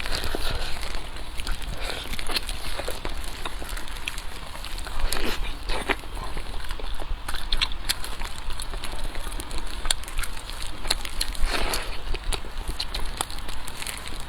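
Close-miked eating: chewing with wet mouth clicks and crackles, and a few longer smacking or slurping sounds about five seconds in and again near the end.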